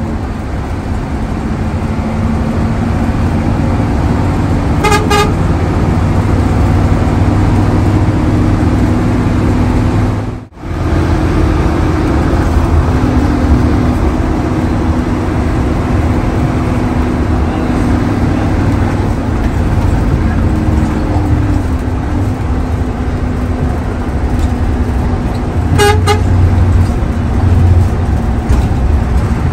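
Hino AK8 bus engine running under way, its note stepping up as it pulls through the gears. The bus horn sounds a short pulsed toot about five seconds in and again near the end.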